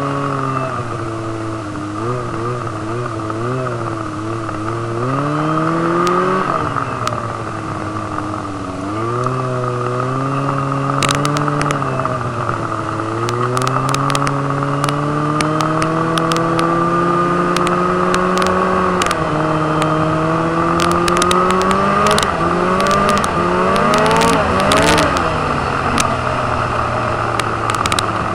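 Snowmobile engine running under way, its pitch rising and falling again and again as the throttle is worked. There are scattered sharp clicks and ticks about a third of the way in and again in the last few seconds.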